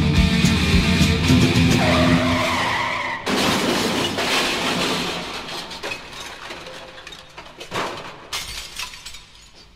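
The end of a heavy metal record: electric guitars hold out a final chord, then about three seconds in a sudden loud crash sets in and dies away over several seconds, with a few scattered sharp hits near the end.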